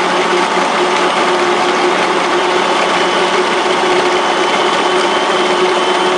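Margaritaville frozen drink maker running its automatic cycle, its motor shaving the ice and blending the drink with a steady, constant hum.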